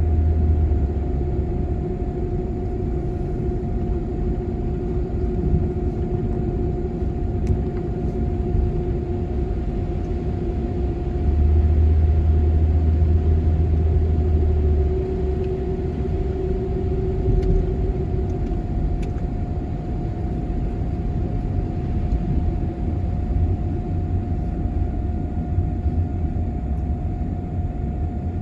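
Steady road and engine rumble of a vehicle driving along a highway, with a constant hum over it. The rumble grows louder for a few seconds near the middle.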